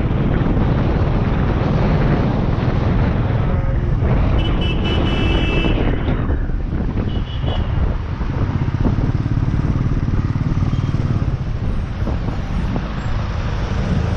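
Wind buffeting a motorcycle-mounted GoPro's microphone while riding, over the motorcycle's engine and the surrounding traffic, a steady heavy rumble. Brief high-pitched tones cut through about four and a half seconds in and again about seven seconds in.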